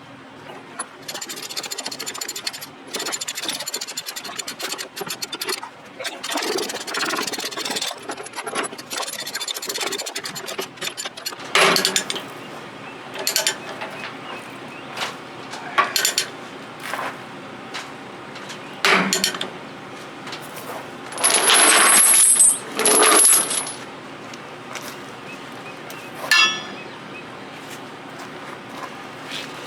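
Half-inch steel tie-down chains clinking, rattling and scraping as they are handled and hooked to secure an excavator on a trailer. The sound comes as a series of separate clanks, with the loudest and longest rattle a little past the middle.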